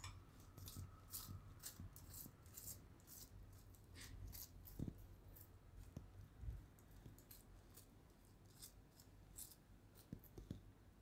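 Faint scraping of a spoon spreading butter over a freshly cooked kulcha, in short repeated strokes about two a second, with a few soft knocks.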